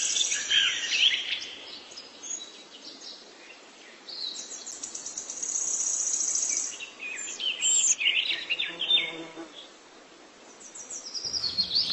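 Birds chirping and calling, with a high, rapid buzzing trill lasting a couple of seconds in the middle and clusters of short chirps around it.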